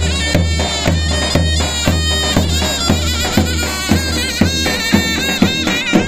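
Halay folk dance music: a shrill, reedy wind melody with quick ornaments over a steady drum beat of about two strokes a second.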